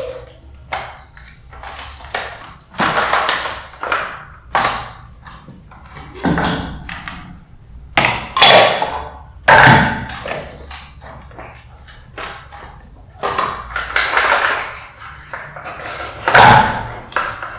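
Irregular knocks and clinks of kitchen utensils against dishes and containers, some ringing briefly, during avocado juice preparation.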